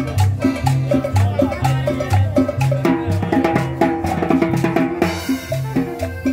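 Latin dance music from a band: a bass line stepping between a few low notes about twice a second, under drum kit and percussion keeping a steady, busy beat, with pitched instrument lines above.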